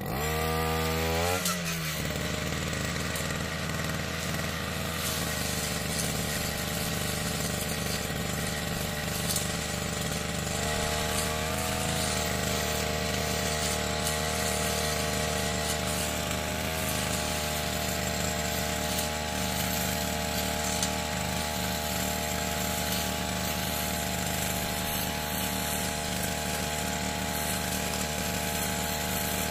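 Yamamax 338 Pro two-stroke brush cutter engine revving up over the first second or so, then running steadily at high speed. Its pitch wavers briefly a couple of times.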